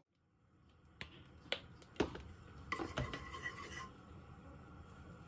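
Cookware knocking and clinking at the stove: a wooden spatula and plate against a frying pan on a gas hob, about four sharp knocks, then a short ringing clatter about three seconds in.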